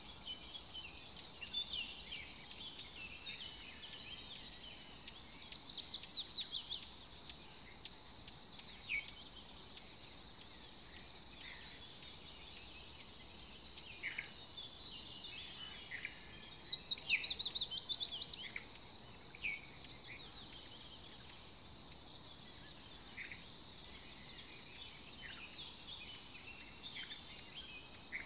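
Birds chirping and calling, with two louder rapid trills of quick repeated notes, one about five seconds in and another about sixteen seconds in.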